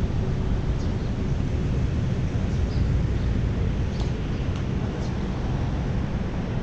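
Steady low rumble of wind on the microphone mixed with road traffic going by on a city street.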